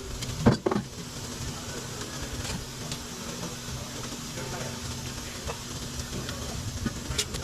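A steady machine hum over an even hiss, with two sharp knocks about half a second in and a few lighter clicks near the end.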